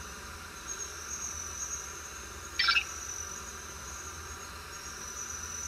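Steady high-pitched chirring over a low hum, with one short blip about two and a half seconds in.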